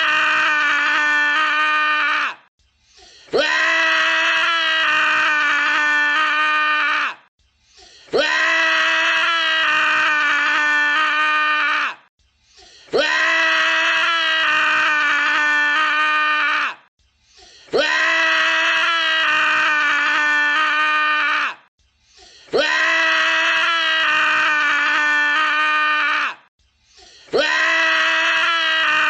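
A man screaming: one long scream of about four seconds held at a steady pitch, then a short pause, repeated over and over the same way.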